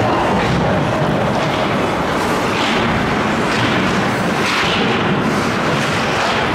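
Loud, steady din of an ice hockey game in a rink, with short sharper noises about once a second.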